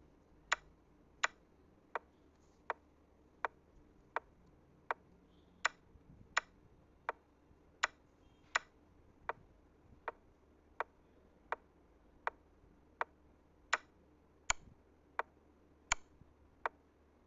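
Steady clock ticking, about four ticks every three seconds, some ticks louder than others.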